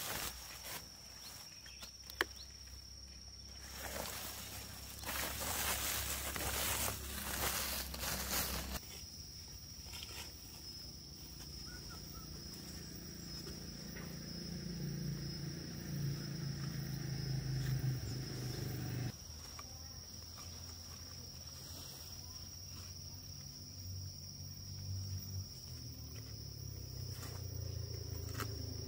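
Outdoor rural ambience under a steady high-pitched insect drone, with rustling noise in the first part and a low hum in the middle part; the background changes abruptly about nine and nineteen seconds in.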